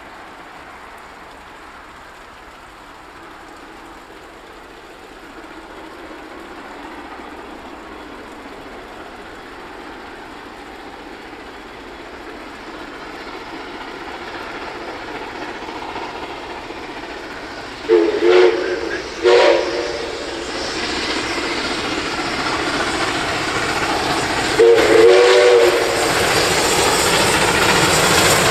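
Steam locomotive 5917 approaching with its train and growing steadily louder, its exhaust and wheels on the rails filling in as it nears. The whistle sounds two short blasts about two-thirds of the way through, then one longer blast near the end as the engine draws level.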